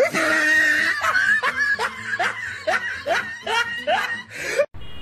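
A woman laughing: a run of "ha-ha" syllables, each falling in pitch, about two to three a second, cut off abruptly near the end.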